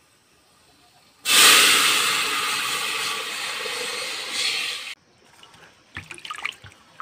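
A loud, rushing hiss starts suddenly about a second in, eases off slightly over nearly four seconds, then cuts off abruptly. Faint clatter follows.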